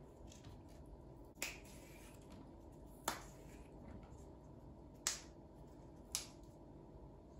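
Four separate sharp clicks or taps, one to two seconds apart, each short with a brief ring, against quiet room tone.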